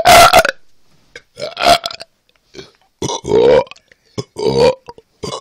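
A person belching loudly over and over, a run of separate drawn-out burps about one a second.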